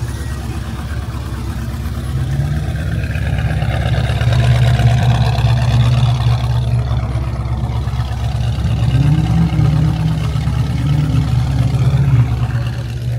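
Car engine running with a low exhaust note, rising in pitch and loudness about four seconds in and again about nine seconds in.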